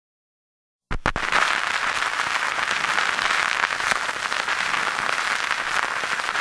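Applause from a crowd, starting suddenly about a second in after silence.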